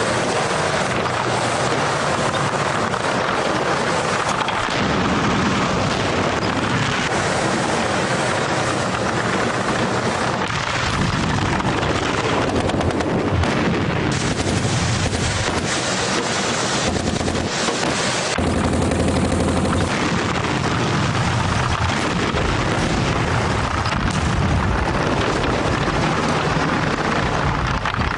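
Battle sounds: dense, continuous machine-gun and rifle fire with booms of shells, over the low running of a tank engine.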